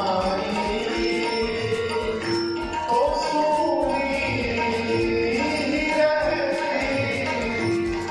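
A man singing a devotional Hindi bhajan in long, wavering held notes, accompanied by tabla keeping a steady beat.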